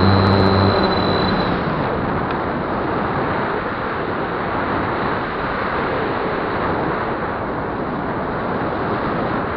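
Wind rushing over an onboard camera on a Flyzone Calypso RC glider in flight. The electric motor's whine and the propeller's hum stop about a second and a half in: the power is cut, and the plane glides on with only the steady wind noise.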